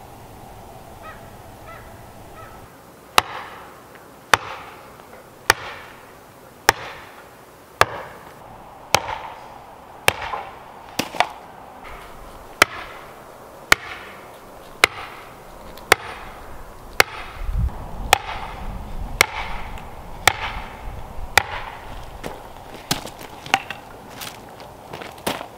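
A hammer driving a wooden stake into hard red clay and shale ground: about twenty sharp blows, one roughly every second, starting about three seconds in.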